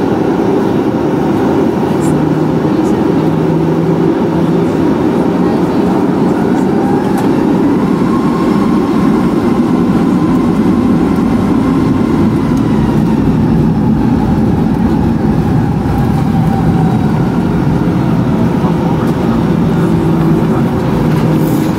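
Boeing 737-900ER's CFM56-7B turbofan engines running at taxi power, heard inside the cabin over the wing: a steady rumble and hum while the jet rolls along the taxiway. About a third of the way in, a faint whine rises and then falls back in pitch.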